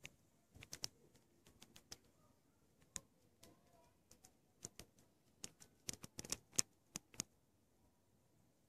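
Faint, irregular sharp clicks and ticks over near silence, in a cluster near the start and a busier run from about five to seven seconds in.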